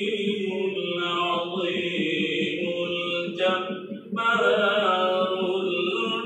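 A man reciting the Quran in the melodic, chanted tajweed style, holding long wavering notes, with a short pause for breath about four seconds in.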